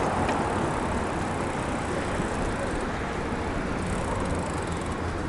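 Steady rushing noise of wind on the microphone and tyres rolling while riding a bicycle.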